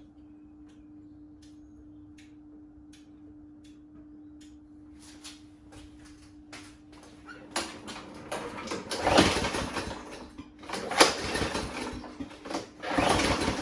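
Craftsman M100 push mower's 140 cc engine being pull-started by its recoil cord, a few hard pulls in the second half, each a loud surge of about a second. It turns over without catching: the mower won't start. Before the pulls there is a faint steady hum with soft regular clicks.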